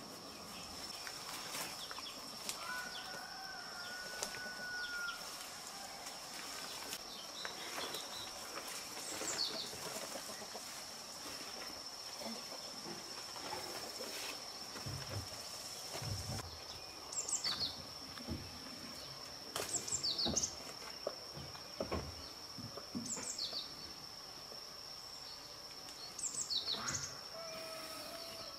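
Outdoor garden ambience: a steady high-pitched insect trill runs throughout, with birds giving quick downward-sweeping chirps, several times in the second half. A few soft low thuds fall in the middle.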